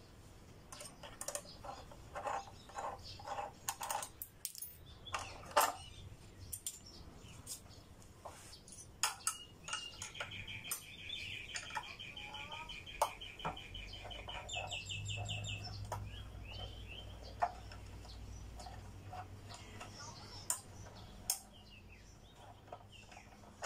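Scattered light metal clicks and clinks of hand tools on a motorcycle's front wheel and brake parts as they are being unbolted, thickest in the first six seconds and again around ten and twenty seconds. Midway a bird sings a rapid chirping trill for several seconds.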